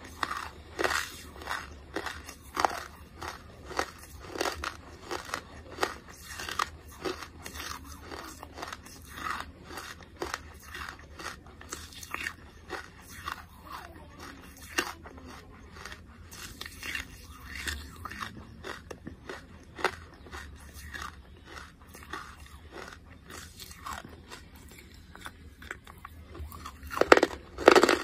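A person chewing and biting charcoal close to the microphone: repeated dry crunches, one or two a second, with the loudest near the end.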